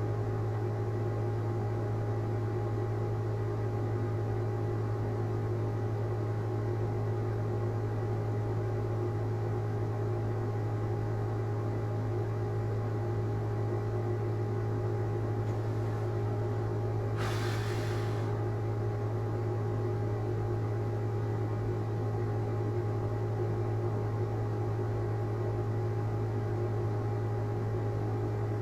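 Steady low electrical hum with a few fainter steady tones above it, holding an even level. About 17 seconds in comes a brief noisy rustle of about a second.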